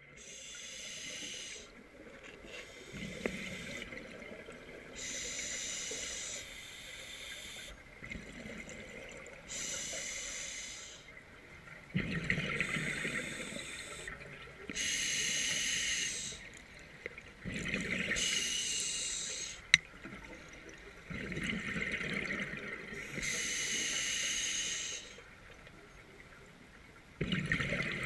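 Scuba diver breathing through a regulator underwater: a hissing inhale alternating with a bubbling exhale, one breath every few seconds.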